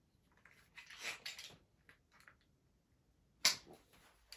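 Torque wrench and bits being handled: soft rustling and light clatter about a second in, then a single sharp click about three and a half seconds in.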